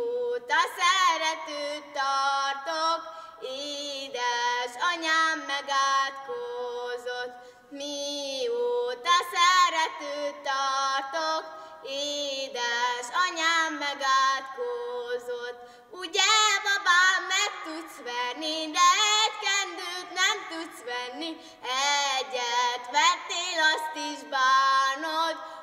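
A girl singing a Hungarian song solo and unaccompanied, in phrases broken by short breaths, her held notes wavering with a light vibrato.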